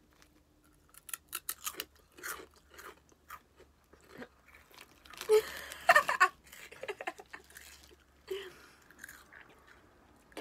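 Chewing and crunching on Smith's Scampi and lemon flavoured fries, a crunchy cereal snack, in short sharp crunches. About five seconds in comes a burst of loud laughter, the loudest sound, followed by more chewing.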